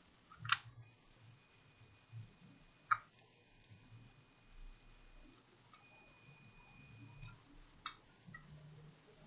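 Multimeter continuity buzzer giving a steady high beep three times, the middle one fainter, as the probes rest on a shorted power rail, with a few sharp clicks of probe tips on the board. The beep signals very low resistance: a short on the output side of the laptop motherboard's second MOSFET on the 19-volt main rail.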